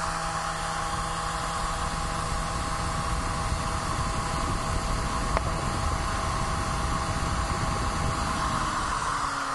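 CD burner drive spinning a disc at high speed during writing: a steady whir with a few steady tones. Near the end the tones start to fall in pitch as the disc begins to spin down.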